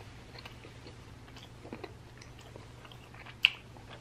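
Close-miked chewing of a mouthful of food, soft wet mouth clicks, with one sharp, loud click about three and a half seconds in.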